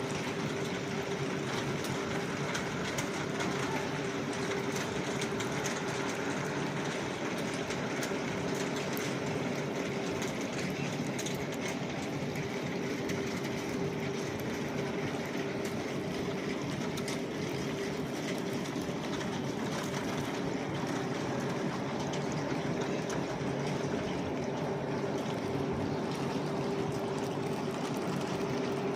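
A machine running steadily: an even hiss with one steady hum through it and faint scattered crackles, unchanging throughout.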